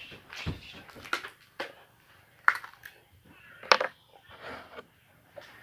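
Close-miked eating and drinking sounds: wet chewing with scattered sharp clicks and smacks, two louder snaps about two and a half and three and three-quarter seconds in, as a plastic drink bottle is raised and drunk from.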